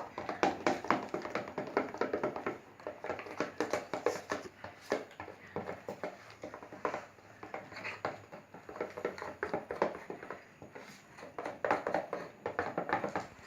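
Slime being stirred in a bowl: a fast, irregular run of wet squishes and clicks as the utensil works through the sticky mixture.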